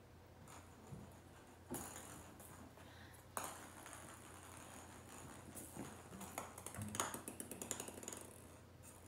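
A small plastic toy ball being batted by a kitten across a hardwood floor: two sharp taps, then a quick run of light clicking and rattling as it rolls and skitters.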